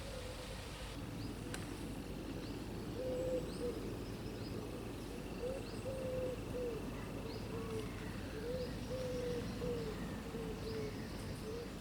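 A pigeon cooing: a run of short low coos starting about three seconds in, with small birds chirping faintly and a low rumble of wind underneath.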